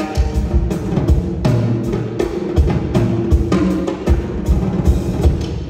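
Solo drum kit played live with sticks: a fast, busy stream of drum strokes, several a second, with low ringing drum tones sustained under the hits.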